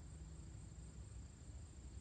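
Faint outdoor background: a steady high-pitched insect drone over a low rumble.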